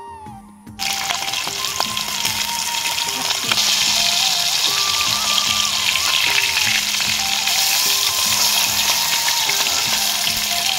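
Rohu fish steaks frying in hot oil in a steel wok, a loud steady sizzle that starts suddenly about a second in. Melodic background music carries on underneath.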